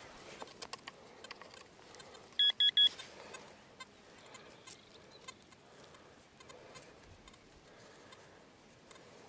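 Metal detector giving three short electronic beeps in quick succession, signalling metal, amid the faint crumbling and rustling of soil being broken apart in the hands.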